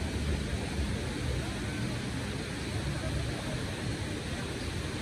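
Steady ambience of a large city-square fountain, water jets and falling water splashing, under a low, restless rumble.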